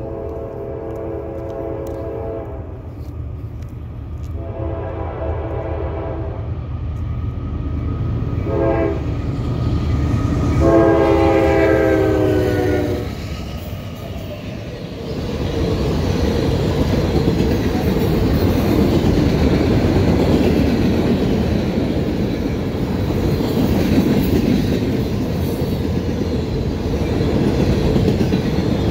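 Norfolk Southern diesel locomotives approaching with the air horn sounding the grade-crossing signal, long, long, short, long, over the rumble of the engines. Then the gondola cars roll past with a steady clickety-clack of wheels over the rail joints.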